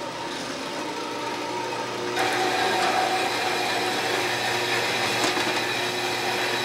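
Delta 4 x 6 inch horizontal metal-cutting band saw running with a steady motor hum. About two seconds in it gets louder and harsher as the blade starts cutting through 3/4-inch black iron pipe.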